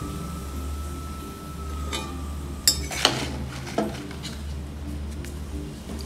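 A few sharp metal clinks of a steel utensil against an iron kadai, bunched between about two and four seconds in, over a steady low hum.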